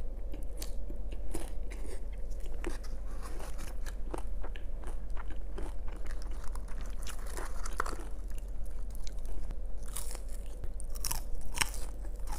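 Close-miked chewing of a bite of crunchy orange hard taco shell: a steady run of crisp crunches and wet mouth clicks, growing busier near the end as fries are eaten.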